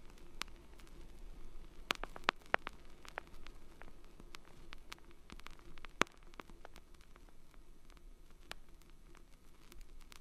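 Faint hiss with scattered sharp clicks and crackles, over a faint steady hum. A cluster of louder clicks comes about two seconds in, and the single loudest click comes about six seconds in.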